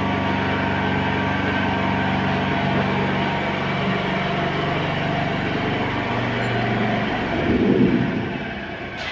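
Dump truck engine running steadily, shifting slightly in pitch about six seconds in and dropping off near seven seconds, followed by a brief, louder low rumbling noise.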